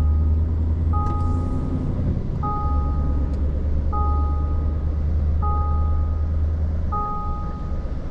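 A two-tone electronic warning beeper sounding over and over, each beep about a second long with a short gap, roughly once every one and a half seconds, over a steady low engine rumble.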